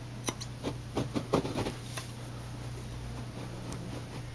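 Scissors snipping nylon frieze carpet fibers: about half a dozen quick cuts in the first second and a half, trimming stray fibers from the repair.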